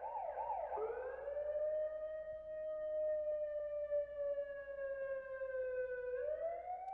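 Police siren: a fast yelping warble that switches about a second in to a long, slow wail. The wail slides gently down in pitch, then starts to rise again near the end.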